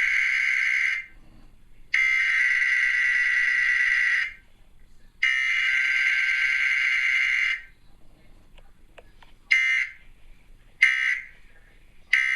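Emergency Alert System SAME digital data bursts played through a TV: three long, harsh, buzzing header bursts about two and a half seconds each with short gaps, then three short end-of-message bursts near the end, the coded signal of a Required Weekly Test.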